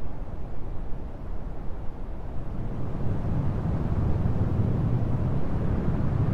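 Steady low rumble of wind and road noise from a moving car, easing a little in the first couple of seconds and then building again.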